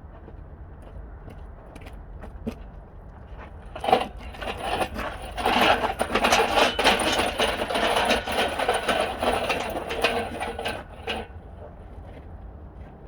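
Dense metallic rattling and clattering, many rapid clicks, from engine-teardown work on a vintage truck engine. It starts sharply about four seconds in, runs for about seven seconds and cuts off.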